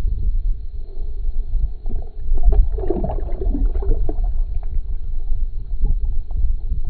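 Water splashing and gurgling in an ice-fishing hole for about a second and a half, beginning about two and a half seconds in, as a small perch is let go back down the hole. A constant low rumble runs underneath.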